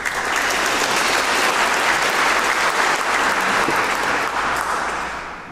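Audience applauding, starting at once and fading out over the last second.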